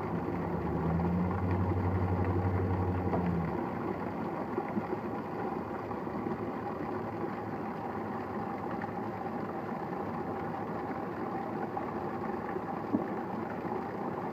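Steady rain with a vehicle engine running loudly for the first three seconds or so, then the engine drops back and the rain goes on alone, with a few faint knocks.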